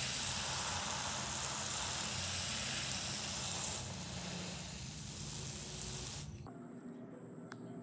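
Steady hiss of water on a soaked shag rug being washed, with a low hum underneath. It eases slightly about four seconds in and cuts off suddenly near the end.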